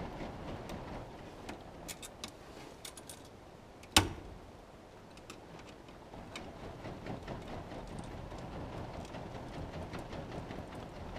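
Scattered small clicks, then a single sharp knock about four seconds in, over a low steady rumble.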